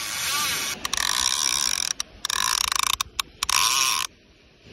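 Penn Senator 9/0 big-game reel buzzing as a running shark pulls line off the spool. The fast, even ratcheting comes in runs of about a second with short breaks and dies down about four seconds in.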